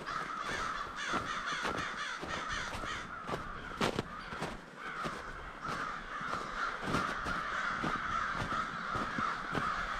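A large flock of American crows cawing together, many overlapping calls forming a continuous din.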